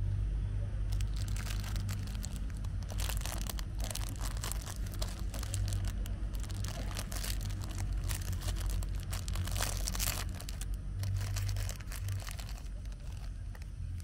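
Clear plastic snack wrapper crinkling and tearing as a palmier biscuit is unwrapped by hand, in irregular crackles that die away near the end, over a steady low rumble.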